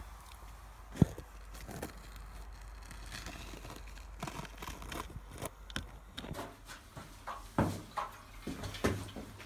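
Scattered knocks, clicks and clatter of handling, with one sharp knock about a second in and a few heavier thuds near the end.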